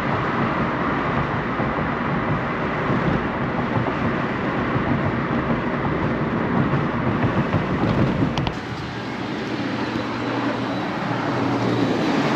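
Road and engine noise of a vehicle being driven, a steady rumbling hiss. The low rumble eases off a little past halfway, with one short click just before.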